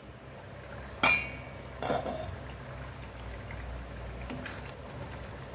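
Thick tomato curry with peas and paneer bubbling in an open frying pan, a steady soft boiling noise. About a second in, a sharp ringing clink as the glass pan lid is set down on the stove, and a duller knock just after.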